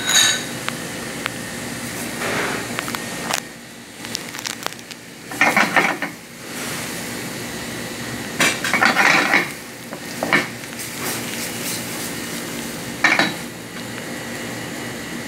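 Chicken, sliced onions and tomato sizzling steadily in a frying pan, with about six short clatters of a utensil against the pan. One of them, just after the start, is a ringing metallic clink.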